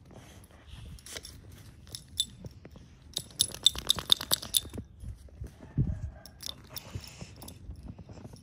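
Metal tags on a puppy's collar jingling in a quick run of clinks as the dog moves, with footsteps crunching in snow.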